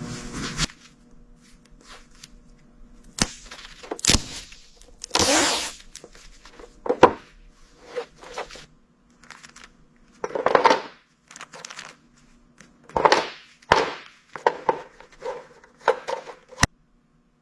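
Hands and small tools working on a toy figure at a bench: a string of irregular clicks, taps and knocks with short scraping and rustling strokes, over a faint steady hum. A steady machine-like noise cuts off within the first second.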